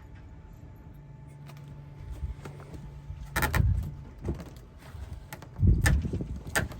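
A few sharp knocks and clunks, the loudest about halfway through and again near the end, over a low steady hum that stops about halfway through.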